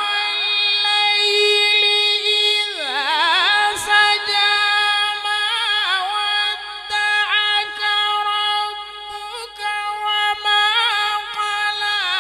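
A man's voice reciting the Quran in a melodic chanting style, amplified through a microphone. He holds one long, high note with a wavering ornament, swooping down and back up about three seconds in and adding smaller turns later.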